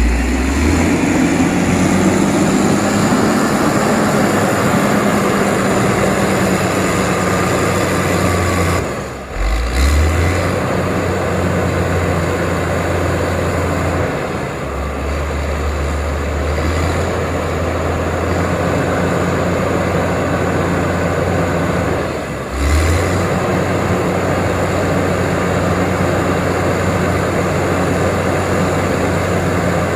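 Heavy road-construction machine's diesel engine running steadily under load with a deep, constant hum. The sound drops out briefly twice and then carries on.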